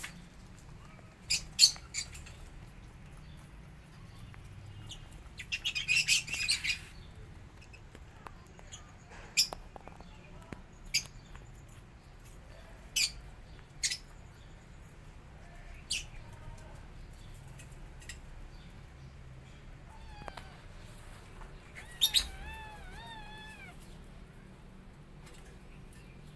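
Kittens mewing: a short high mew about twenty seconds in, then a quick run of three rising-and-falling mews. Scattered sharp chirps and clicks come and go throughout, with a short noisy burst around six seconds in.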